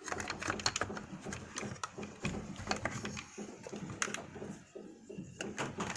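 Hard plastic parts of a toy skid steer clicking and knocking together as it is handled and fitted back together, in irregular light clicks several times a second.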